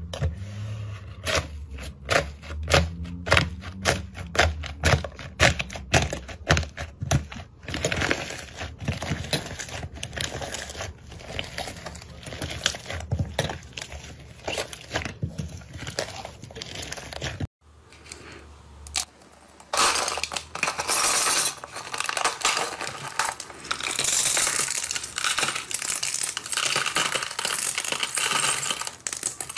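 Slime being worked by hands, making a run of sharp clicking pops several times a second. About two-thirds of the way in it cuts to a denser, continuous crackling.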